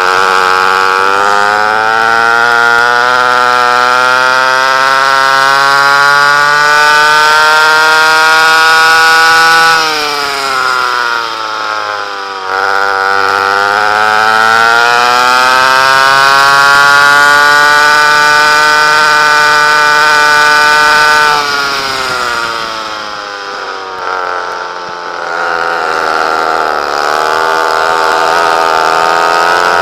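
Vintage rear-engine racing kart's two-stroke engine with a header exhaust rather than a tuned pipe, heard from on board at full throttle. The pitch climbs steadily along each straight, then drops sharply as the throttle comes off for a corner, about a third of the way in and again past two-thirds, before climbing again near the end.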